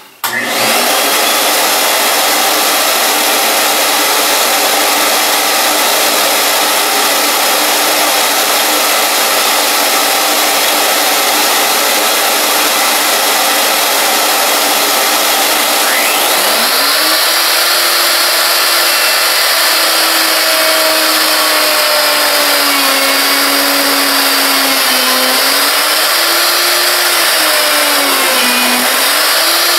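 A shop vacuum runs steadily. About halfway through, a plunge router spins up with a rising whine and keeps running, its pitch dipping briefly a couple of times as the bit bores into the wooden bench top.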